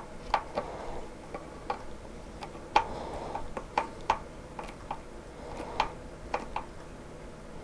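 Irregular light clicks and taps, about two a second and uneven, from a small hand tool working at the hinge edge of a model airplane rudder.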